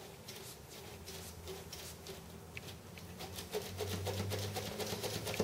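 Faint light scratching and crackling of masking tape and wing skin as the freshly cut aileron of a moulded glass wing is flexed up and down on its hinge. The ticks grow busier in the second half.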